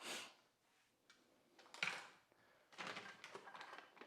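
Faint handling noises: two brief rustles, then a run of light taps and scrapes.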